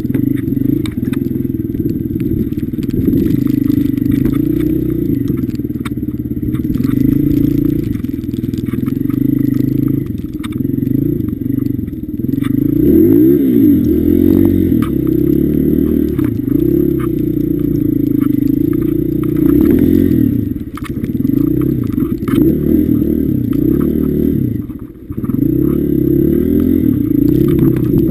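Honda CRF150F dirt bike's single-cylinder four-stroke engine running under load as it is ridden through snow, the revs rising and falling with the throttle. The revs climb steeply about halfway through and drop off briefly near the end.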